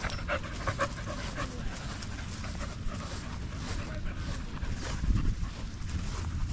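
A dog panting. A dull low bump comes about five seconds in.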